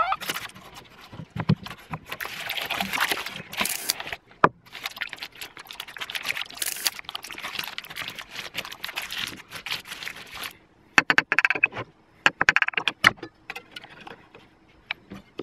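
Baking paper crinkling and rustling as it is pulled away from a baked cheesecake on a wooden board, a steady crackle full of small clicks. After about ten seconds this gives way to separate clinks and knocks of a ceramic plate and a knife on the board.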